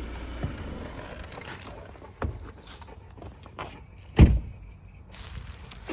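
Car sounds: a low rumble stops about half a second in, a few light clicks and knocks follow, and a car door shuts with a loud thump about four seconds in.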